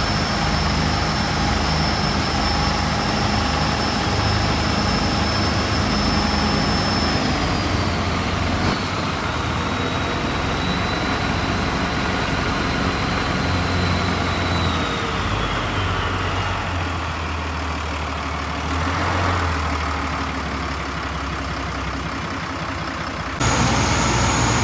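Cummins QSB 6.7 six-cylinder turbo-diesel inboard running hard, with a high turbo whine over the engine drone and water rushing past the hull. The whine drops in pitch twice, about a third of the way in and again around the middle as the revs ease off, then the sound jumps back to full loudness near the end. The propeller is one the owner finds too heavy in pitch, holding the revs down.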